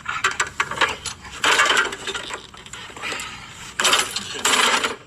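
Broken push lawnmower being roughly handled: harsh rasping, clattering metal bursts, each about half a second long, several times.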